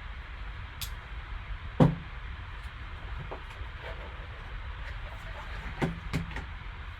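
Hands handling a sealed card box and its packaging on a table: a sharp knock about two seconds in, two smaller knocks near the end, and faint clicks over a steady low hum.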